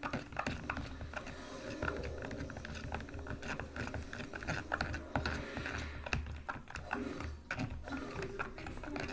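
A plastic stirrer scraping and clicking against the sides and bottom of a plastic tub while mixing a thick glue-and-paint slime base: a continuous run of rapid, irregular clicks and scrapes.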